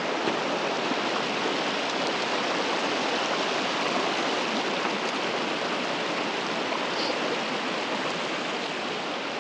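Mountain creek rushing over rocks: a steady, even wash of running water.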